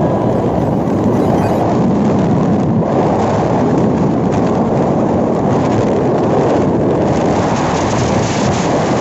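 Steady, loud wind rush buffeting a phone's microphone on a moving motorcycle, mixed with the road and engine noise of the ride.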